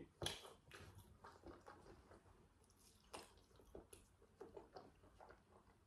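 Faint, close-up chewing of a McDonald's french fry dipped in sweet-and-sour sauce, heard as scattered soft wet clicks of the mouth.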